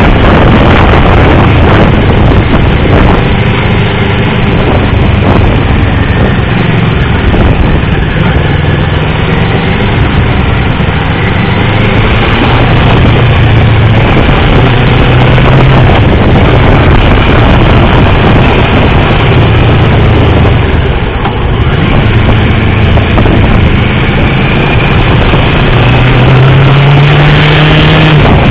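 Motorcycle engine running hard at track speed, its pitch rising and falling through the gears, under loud wind rush over the mount. Level dips briefly about three-quarters of the way through, and the engine note climbs near the end.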